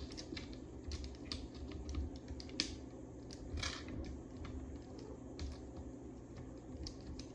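Faint, irregular small clicks and taps of a visor screw being turned into a plastic helmet visor mount, over a low steady hum.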